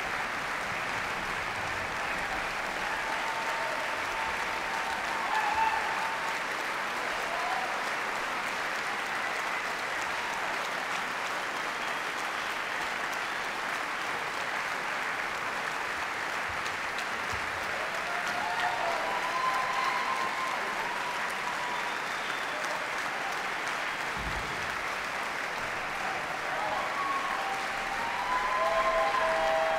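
Concert audience applauding steadily, with voices shouting now and then above the clapping, more of them around the middle and near the end.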